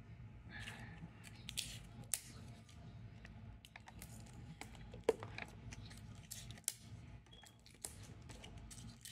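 Faint handling noise as a cardboard hot cocoa box is fitted behind a plush bear in a mug: scattered light clicks and short rustles of packaging, over a steady low hum.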